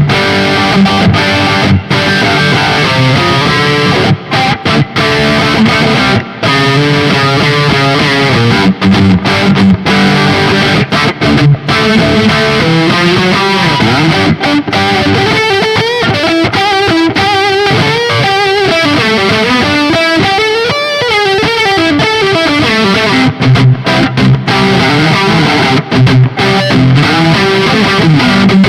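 Höfner 4575 electric guitar played through distortion. Chords with short clipped stops through the first half, then a lead passage of single notes that waver in pitch from about fifteen to twenty-two seconds in, then chords again near the end.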